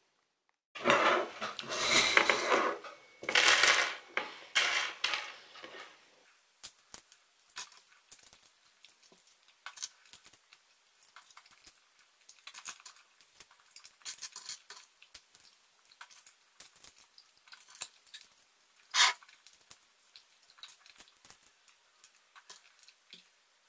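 Roasted sunflower seeds rattling against a glass plate as a hand stirs them for about five seconds. After that come scattered small clicks and cracks of seeds being cracked open and shells dropped on a table, with one sharper crack about 19 seconds in.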